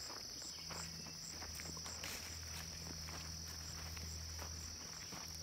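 A steady high-pitched insect chorus, with footsteps brushing through tall grass. A low steady hum runs underneath from about half a second in.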